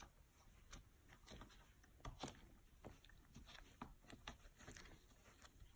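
Near silence with faint, scattered small ticks and taps, irregularly spaced, from gloved hands handling the mold on the bench.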